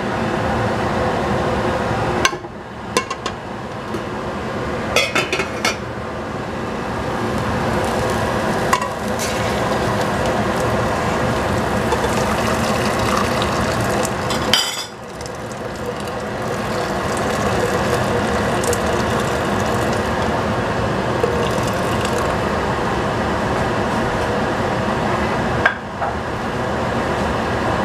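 Water poured from a small saucepan into a large stainless stockpot, over a steady rushing background hum, with a few clinks of metal cookware.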